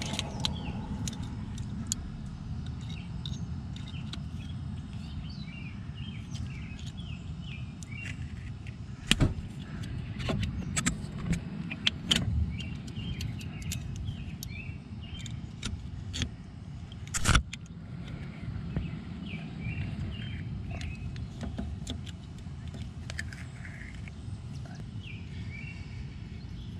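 Small metal clicks and clinks of pliers working a cotter pin into a tie rod end's castle nut, with a few sharper metal knocks, the loudest about nine and seventeen seconds in, over a steady low rumble.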